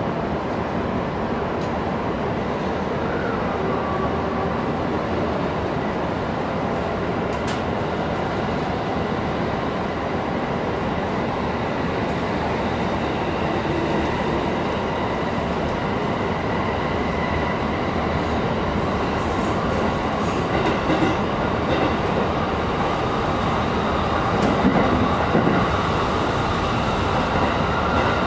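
Running noise inside a Joban Line Rapid commuter train car: a steady rumble of wheels on rails with faint whining tones, growing a little louder in the last few seconds.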